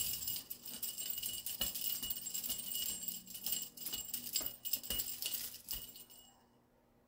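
Small jingle bells jingling and rattling in a fast, uneven jangle, with a few soft knocks, stopping about six seconds in.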